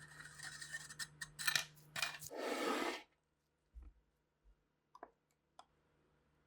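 Workshop hand work on rifle parts: scraping and rubbing strokes with sharp ticks for about three seconds, then a few light clicks and taps.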